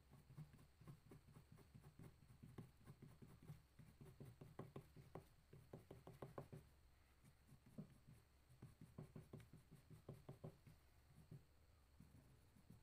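Dark green oil pastel drawn in quick short strokes across paper: a faint scratching, several strokes a second, in runs with short lulls between.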